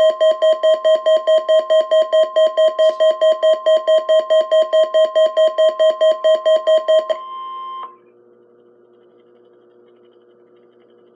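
NOAA Weather Radio's steady warning alarm tone, sent as a weekly test, with a Midland WR-100 weather radio's alert beeper pulsing loudly over it at about four beeps a second. The beeping stops about seven seconds in, and the steady tone cuts off a moment later.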